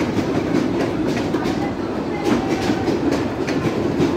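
Passenger train's coaches rolling past along the platform: a steady rumble with the wheels clicking and clattering irregularly over the rail joints.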